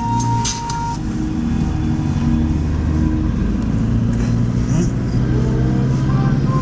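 Car running steadily along a road, a low engine and road hum, with the end of background music cutting off about a second in.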